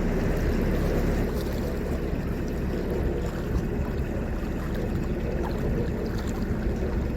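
A narrowboat's engine running steadily as the boat cruises, a constant low rumble with water and wind noise over it.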